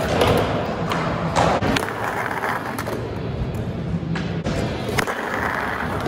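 Skateboard wheels rolling on a smooth concrete floor, with several sharp clacks of the board, the loudest about five seconds in. After it the trucks grind along a painted concrete ledge in a slappy grind.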